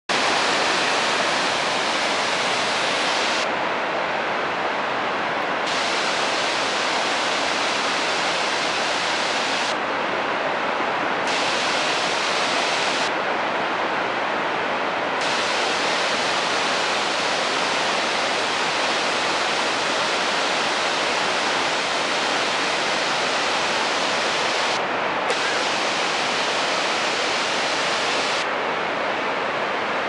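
Waterfall swollen with brown floodwater pouring down stepped rock, a steady loud rushing of water.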